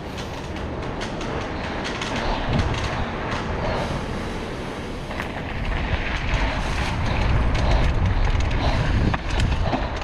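Mountain bike descending a rough dirt trail: tyres running over dirt and rocks with the bike rattling and clattering and many small knocks. A heavier low rumble builds about halfway through.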